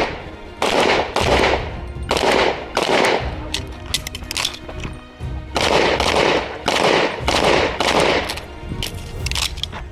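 Rapid pistol fire during an IPSC stage: about a dozen shots, mostly in quick pairs, each with a short ringing echo, with a break of about a second and a half near the middle before the firing resumes.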